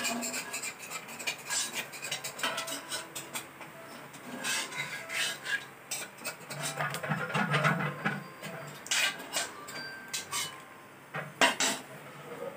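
Metal spatula scraping and clinking against a steel wok, in many short, irregular strokes, as fried pork-rind chicharon is scooped out of the oil.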